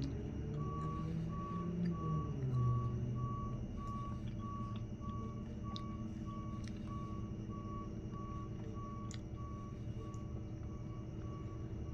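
Vehicle backup alarm beeping steadily, about one and a half evenly spaced beeps a second at one pitch, over the low rumble of a truck engine that shifts in pitch during the first few seconds.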